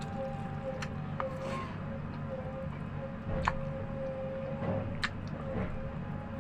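A person eating, with about five sharp short clicks, the loudest about halfway through, over a steady background hum with a faint steady tone.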